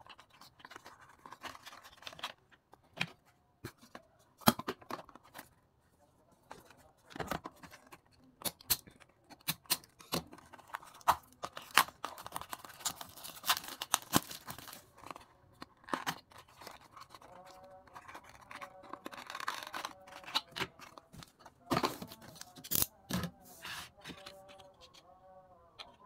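Clear plastic blister packaging being cut open with a utility knife and pulled apart by hand: irregular sharp cracks, crinkling and scraping of stiff plastic.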